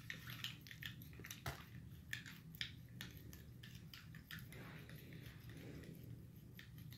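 Plastic spoons stirring borax activator in cups of water, with irregular light clicks and taps of spoon against cup. The sharpest click comes about a second and a half in.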